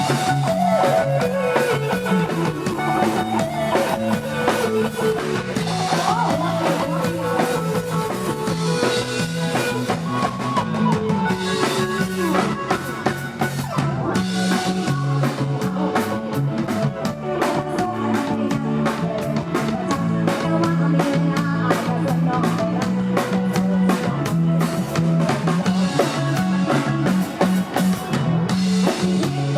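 Live band playing Isan-style Thai pop with drum kit and guitar, a melody line gliding up and down in pitch over a steady bass pattern.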